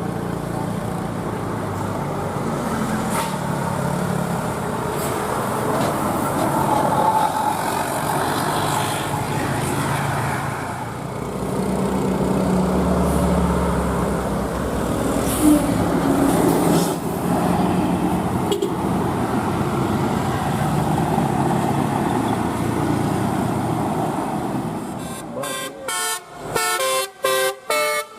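Traffic noise with bus engines running, then near the end a bus's telolet horn, a set of tuned air horns, starts playing a melody in short stepped notes.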